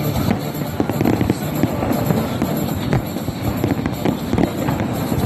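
Fireworks bursting in rapid, overlapping bangs, with music playing throughout.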